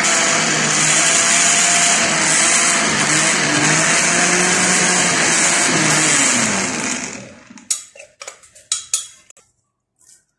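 Electric blender grinding onions with tomatoes, green chillies and herbs into a thick masala paste. The motor's pitch wavers as it works the load. About seven seconds in it is switched off and spins down, followed by a few clicks and knocks as the jar is handled.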